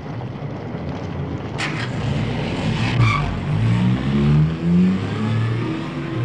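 Ford Anglia's four-cylinder engine accelerating as the car pulls away, its pitch climbing in several rising steps. There are two sharp knocks, at about one and a half and three seconds in.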